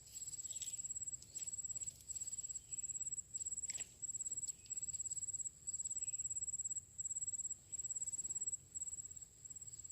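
An insect, cricket-like, trilling at a high steady pitch in bursts of about a second with short breaks between them. A faint tap about halfway through.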